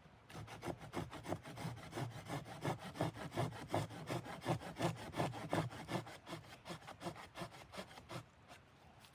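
Fast, even rasping strokes, about five a second, that stop about eight seconds in.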